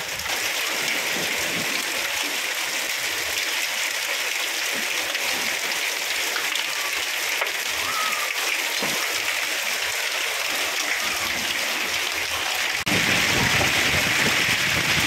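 Heavy rain mixed with hail pelting a flooded rooftop terrace and rows of plastic plant pots: a dense, steady patter and splash. About thirteen seconds in it turns suddenly louder and fuller.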